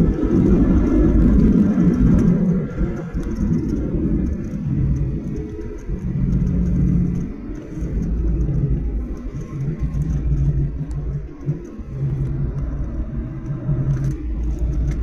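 Boeing 737-800 heard from inside the cabin around landing: a heavy low rumble that is loudest for the first two seconds, then eases and wavers over a steady low hum from its CFM56-7B engines.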